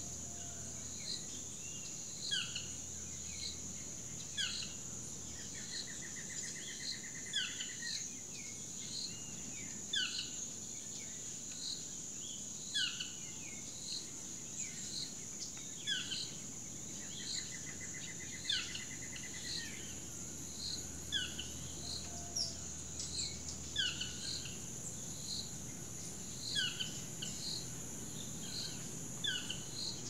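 Costa Rican rainforest ambience: a steady high-pitched insect drone, with birds repeating short falling chirps about once a second. Twice a rapid pulsing trill runs for a couple of seconds.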